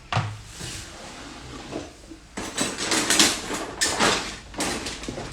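Wire whisk beating eggs and sugar in a plastic Tupperware bowl: a knock at the start, then from about halfway in rapid scraping, swishing strokes, about three a second.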